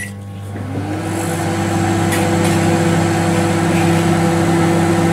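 Microwave oven running: a steady hum that starts at once, with one tone climbing in pitch over the first second before settling.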